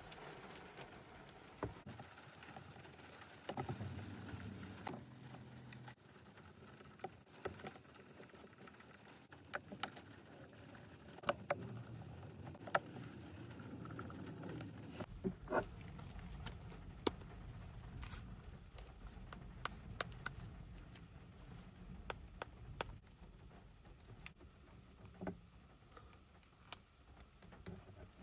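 Scattered small clicks and taps of hand tools and parts being handled during a phone screen replacement, with a faint low hum in the background from about halfway on.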